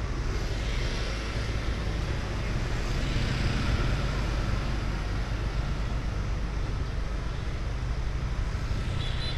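Street traffic passing: a steady low engine hum over continuous road noise.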